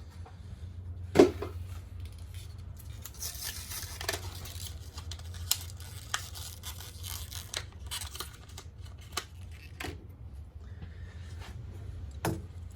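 Hands working a turn signal bulb and its plastic socket in a car's headlight housing: irregular small plastic clicks, knocks and rustling, with one sharp knock about a second in.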